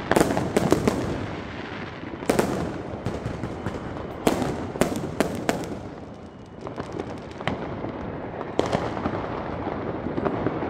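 Consumer fireworks going off on all sides: a continuous crackle and rumble of bangs, broken by louder sharp cracks, a cluster at the start and more about two, four and five seconds in.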